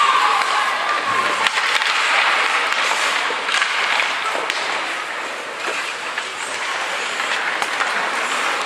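Ice hockey play in an arena: skate blades scraping on the ice and hockey sticks clacking on the ice and puck, a steady scraping hiss dotted with sharp clicks.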